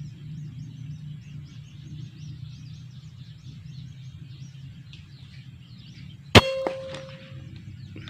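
A single air rifle shot about six seconds in: a sharp crack followed by a metallic ring that fades over about a second. A rapid series of high chirps and a low steady rumble run underneath.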